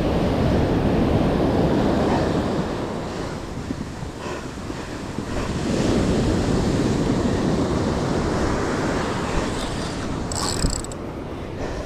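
Surf washing up and draining back on the shore in slow swells, with wind buffeting the microphone. A brief high hiss comes near the end.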